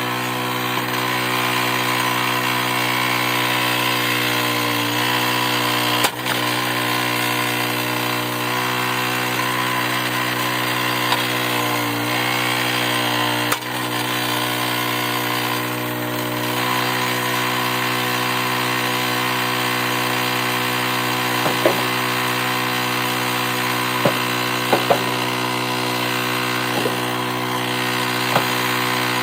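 Small gas engine of a hydraulic log splitter running steadily, briefly dipping in pitch twice as it takes load. There are two sharp knocks, and near the end several short squeaks.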